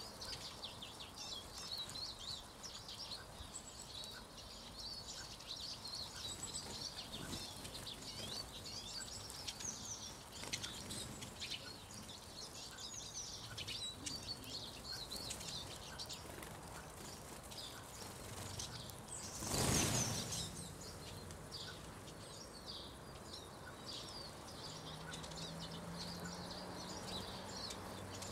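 Eurasian siskins twittering, many quick high chirps over a steady outdoor background. About two-thirds of the way through, a brief rushing burst is the loudest sound, and a faint low drone comes in near the end.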